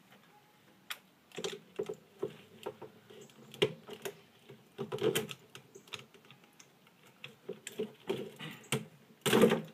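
Plastic optical drive from a DVD player being handled and unscrewed with a screwdriver: irregular clicks, taps and rattles, with a louder scrape about half a second long near the end.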